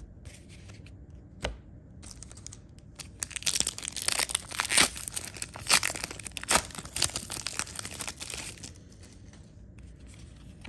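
A 1994 Upper Deck All-Time Heroes of Baseball trading-card pack wrapper being torn open and crinkled by hand. It goes on for about five seconds, with several sharp rips, then settles.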